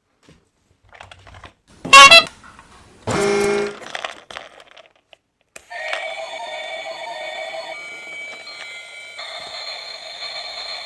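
Two short electronic sound effects, about two and three seconds in, then a simple electronic tune from about six seconds in.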